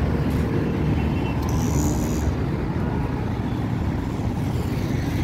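Road traffic, a steady low rumble of passing vehicles, with a brief hiss about two seconds in.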